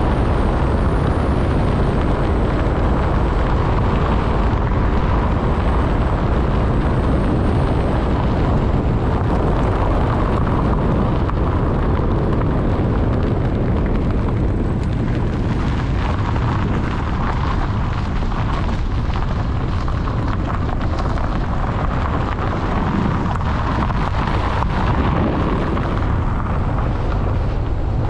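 Steady rumble of a vehicle driving, with heavy wind buffeting on the microphone over the road noise.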